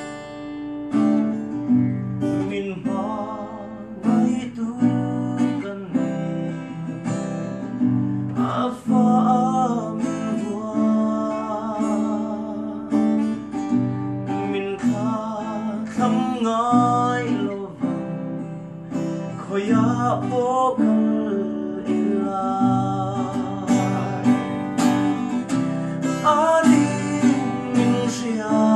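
A man singing while strumming and picking an acoustic guitar, his voice wavering and sliding between notes over the chords.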